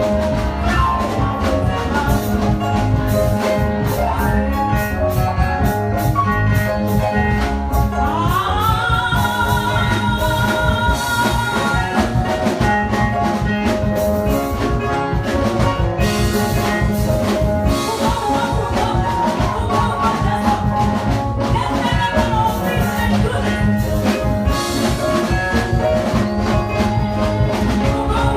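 Church mass choir singing with band accompaniment and a steady beat. About eight seconds in, a voice slides up and holds a long high note for several seconds.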